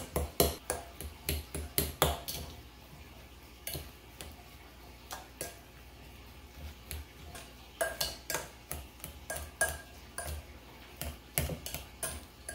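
Metal potato masher knocking and clinking against a glass bowl while mashing steamed pumpkin, in quick runs of sharp knocks, with a sparser, quieter stretch in the middle.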